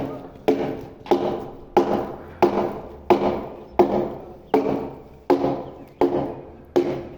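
Steady, evenly spaced hammer blows on a construction site, about three every two seconds, each with a short ringing decay.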